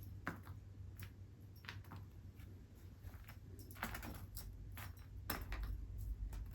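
Irregular light clicks and taps, like cats' claws and paws on a hard floor during play, a little busier in the second half, over a faint low hum.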